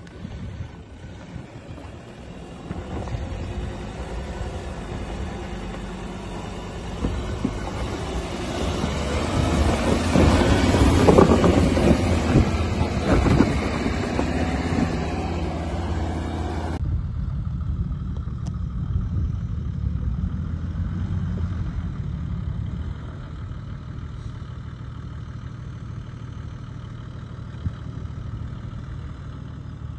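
Ford Ranger ute's engine working hard up a rocky hill climb, with rocks and dirt crunching under the tyres, loudest as it passes close by about ten to thirteen seconds in. After a cut, a Toyota LandCruiser 80 Series runs steadily at low revs as it crawls up the slope.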